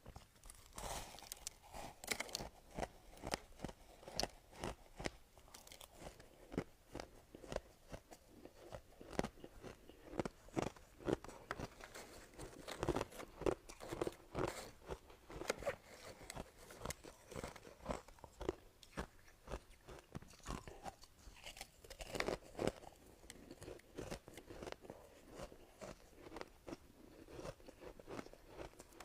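Soft ice being bitten and chewed close to the microphone: dense, crackly crunches, several a second, continuing throughout.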